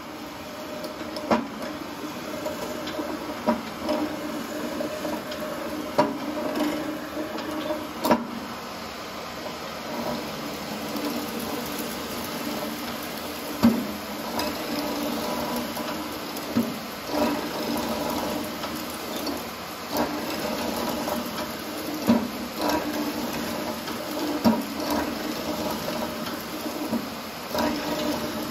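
Felder FD250 mortiser cutting a square mortise with a hollow chisel and auger bit: the motor hums steadily as the chisel is levered down into the wood again and again. Sharp knocks come every couple of seconds.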